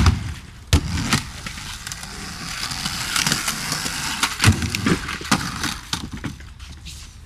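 Skateboard wheels rolling over rough concrete, with several sharp clacks and knocks of the board slapping the ground and hitting a concrete box, the loudest near the start and again past the middle.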